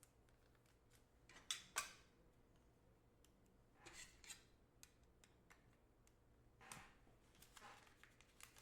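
Faint, brief rustles and scrapes of trading cards being handled, a few seconds apart, the loudest pair about a second and a half in.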